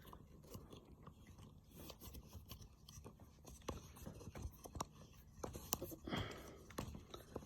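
Faint handling noises: small clicks and scrapes of a camera phone holder being worked loose and unscrewed from its mount.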